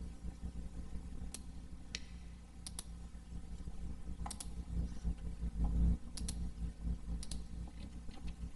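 Computer mouse clicking: about a dozen sharp clicks, several in quick pairs like double-clicks, over a low steady hum.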